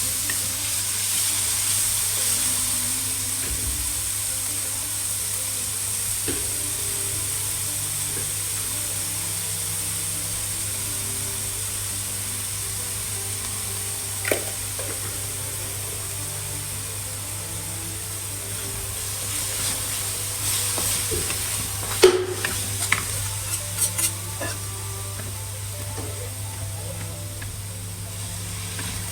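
Pasta sauce sizzling in a frying pan while it is stirred, with a steady frying hiss. There is a sharp knock of a utensil against the pan about halfway through, and a cluster of knocks near the end, the loudest of them the first.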